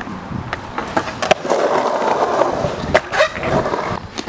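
Skateboard wheels rolling across the concrete of an empty swimming pool, with several sharp clacks from the board.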